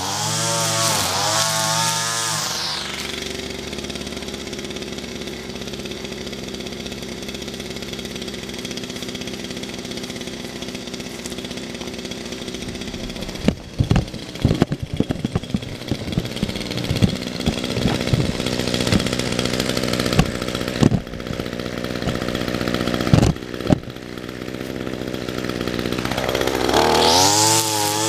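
Gas string trimmer engine revving up and down, then dropping to a steady idle about three seconds in. Through the middle stretch a run of sharp clicks and knocks comes over it, and near the end the engine revs up again.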